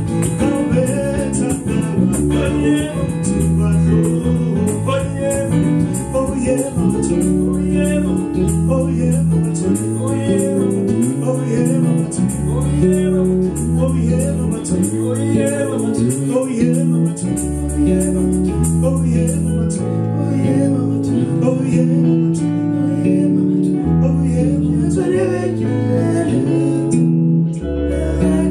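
Music: an electric bass guitar playing a melodic line of held, changing notes over a steady beat, with singing over the top.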